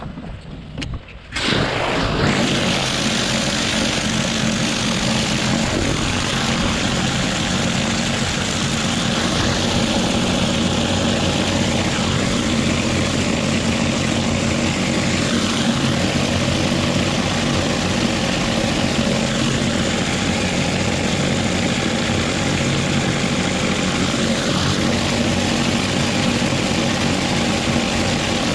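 Pressure-washer surface cleaner spraying the roof tiles, a loud steady hiss of water jets over a steady mechanical hum. It starts suddenly about a second and a half in.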